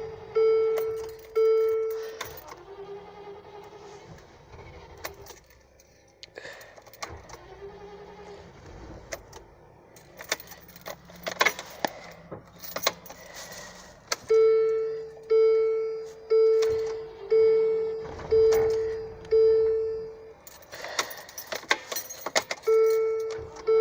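Dashboard warning chime of a 1999 Land Rover Discovery 2 dinging about once a second, each ding dying away, in runs that stop for several seconds and start again. Between the runs come clicks and a rattle of keys.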